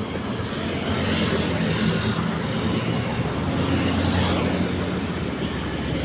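Steady drone of a small motor-vehicle engine mixed with street traffic noise, heard from an open becak (pedicab) moving through city traffic.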